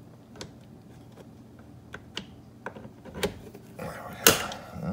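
Small scattered clicks and taps of interior panel pry tools being handled against a car's interior door trim, with a louder clatter about four seconds in.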